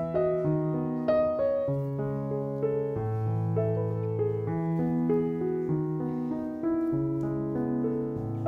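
Background piano music: a gentle melody over held low notes.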